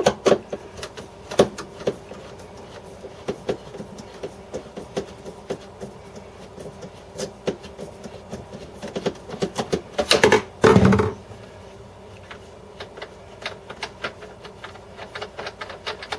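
Screws and plastic refrigerator drawer parts being handled and taken apart: scattered small clicks, taps and rattles, with a louder scraping rattle lasting about a second, about ten seconds in.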